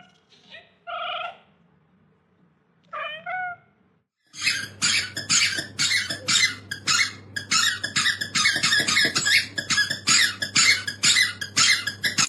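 Three short, high-pitched calls, each rising then falling, spread over the first few seconds. From about four seconds in, a loud, fast, regular pulsing of about three beats a second takes over.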